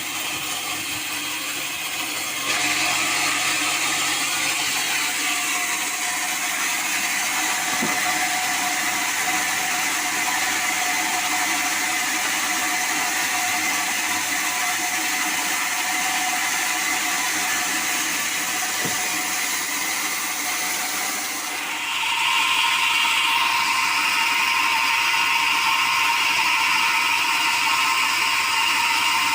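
Sawmill saw running steadily, likely cutting teak. It gets louder a couple of seconds in and changes pitch about three quarters of the way through.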